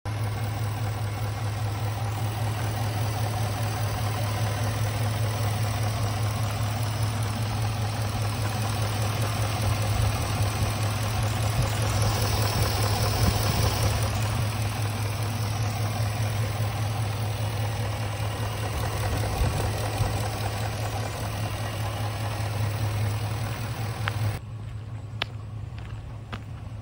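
Ford F-350's 6.2-litre gasoline V8 idling steadily with its hood open, a low, even hum. Near the end the sound drops abruptly to a quieter level.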